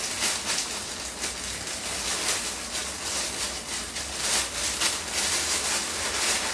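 Clear plastic bag crinkling and rustling as it is pulled and picked open by hand, in irregular crackles.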